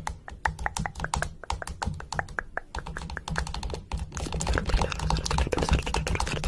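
A rapid, irregular run of small sharp clicks and taps, like typing on a keyboard, growing denser and louder about four seconds in.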